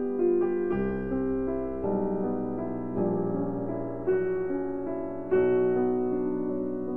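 Background piano music: a slow piece of held notes and chords, changing about once a second.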